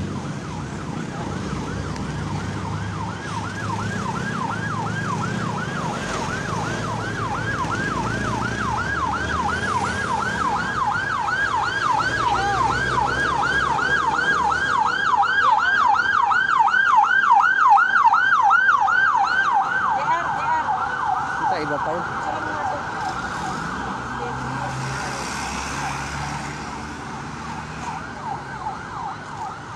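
Emergency vehicle siren in fast yelp mode, about three to four rising sweeps a second. It grows louder to a peak a little past the middle, then changes to a steadier tone and fades. A low vehicle engine rumble runs beneath.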